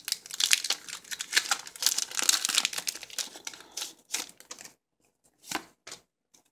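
Foil wrapper of a Pokémon trading card booster pack crinkling and tearing as it is ripped open by hand. The crinkling thins out after about four seconds into a few soft rustles.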